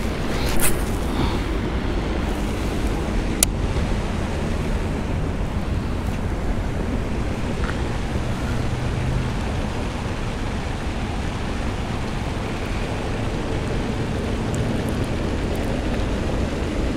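Wind buffeting an outdoor microphone: a steady low rumbling noise, with a couple of sharp clicks in the first few seconds.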